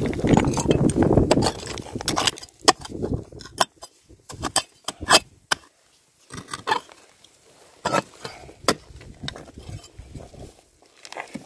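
Digging by hand in dry, stony earth. A dense, rasping scrape of loose soil lasts about two seconds, then comes a string of separate sharp clicks and knocks as the digging tool and stones strike one another.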